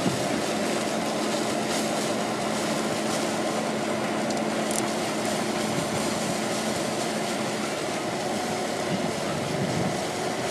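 John Deere 1050J crawler dozer running steadily as it works a wood chip pile, with a steady engine hum that drops away about eight seconds in.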